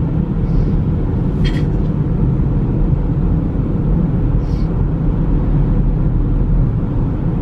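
Steady low rumble of tyre and engine noise inside a car's cabin while it drives along an expressway, with two faint brief hisses about a second and a half and four and a half seconds in.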